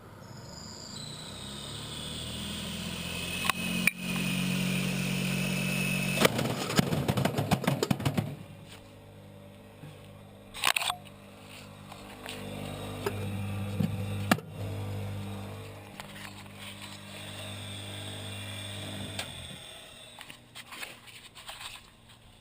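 Washing machine spinning its drum at high speed: the motor's whine rises as it spins up, then a rapid clatter of banging for about two seconds, then a steadier running hum broken by a couple of sharp knocks, dying away near the end.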